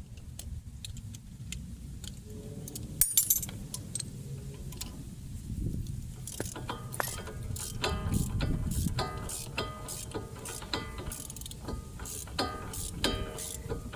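Ratchet wrench clicking in quick runs as the bolts of a front wheel hub are turned back in, with a sharp metallic clank about three seconds in.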